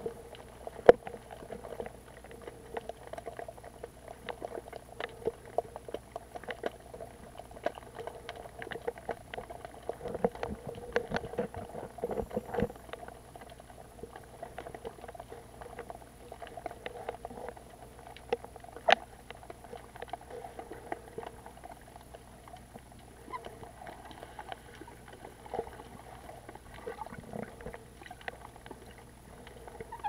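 Muffled underwater sound picked up by a camera in a waterproof housing: a dull, steady rush of water with many irregular clicks and crackles scattered through it.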